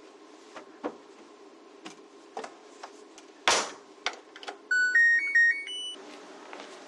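Scattered light clicks and knocks of things being handled, with one louder knock, followed by a home appliance's short electronic beep melody of about six notes.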